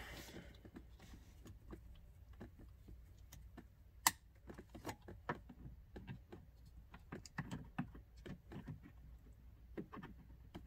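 Scattered small plastic clicks and taps from a blend door actuator being handled and fitted into the heater box under a dashboard, with one sharper click about four seconds in.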